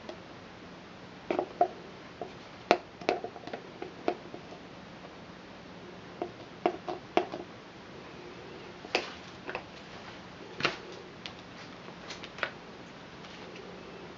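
Irregular light clicks and taps of a plastic cup and spatula being handled while soap batter is poured into a mould, some in quick little clusters, over a faint steady hiss.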